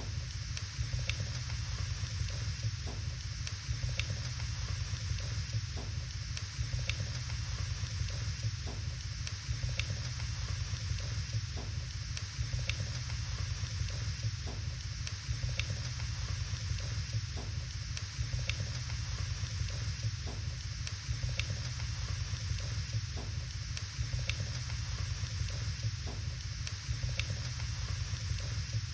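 Wood fire burning in a fireplace: a steady hiss with sharp crackles and pops about once a second, over a low rumble.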